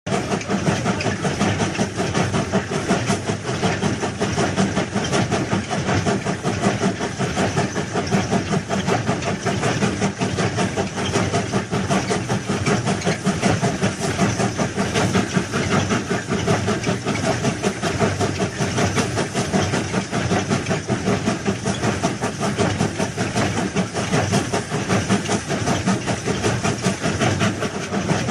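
Heavy railway track machine running: a steady engine noise with hiss.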